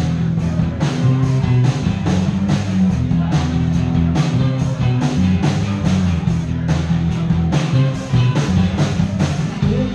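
Live rock band playing, with the drum kit loud and close keeping a steady beat over a bass guitar line and guitar.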